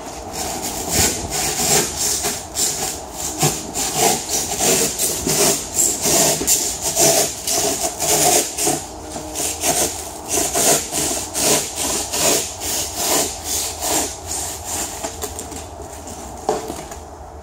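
Handsaw cutting through set expanding foam in quick back-and-forth strokes, about two a second, stopping shortly before the end.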